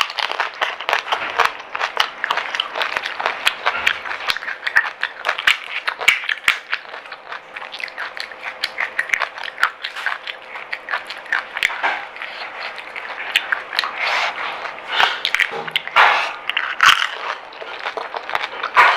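Crisp pani puri shells crunching and being chewed up close: a dense run of fine crackles and clicks, with a few louder crunches near the end.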